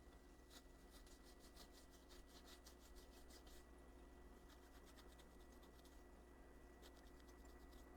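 Faint, rapid rubbing and scratching strokes, about ten a second in runs, as an OCA glue remover works over an iPhone LCD to clear leftover optically clear adhesive.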